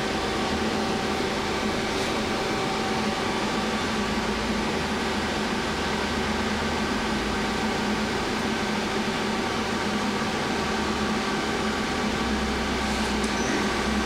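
Feeler HT-30Y CNC turning center running under power: a steady mechanical hum with several steady tones, unchanging in level.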